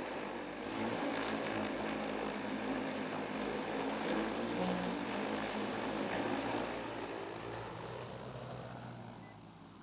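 EAVision J100 agricultural spray drone's rotors running under a full payload, a steady propeller hum with a faint high whine as it hovers and climbs. The sound fades over the last couple of seconds as the drone moves away.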